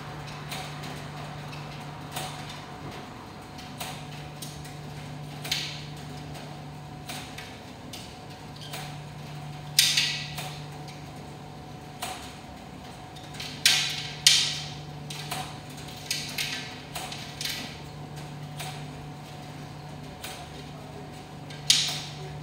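ADC (American Dryer Corporation) commercial tumble dryers running: a steady low hum under irregular mechanical knocks and clicks. The loudest knocks come about ten seconds in, twice around fourteen seconds, and near the end.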